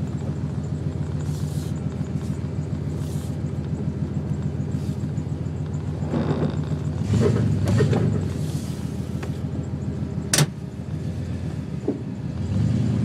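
Turbocharged Ford Mustang engine heard from inside the cabin, idling steadily and then picking up briefly around six to eight seconds in as the car moves off at low speed. A single sharp click comes about ten seconds in.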